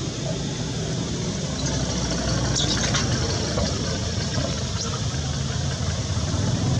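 An engine running steadily at idle, a continuous low drone, with a few faint high chirps about two and a half to three seconds in.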